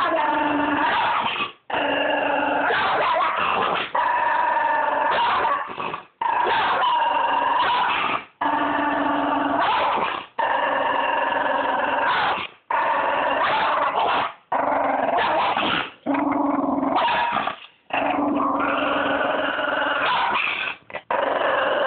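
Small white curly-coated dog growling: about ten long, steady growls of one to two seconds each, broken by short pauses for breath. It is an aggressive warning growl.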